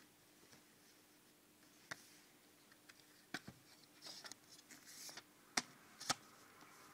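Faint handling of a CD booklet and plastic jewel case: scattered light clicks and paper rustling, with two sharper clicks about half a second apart near the end.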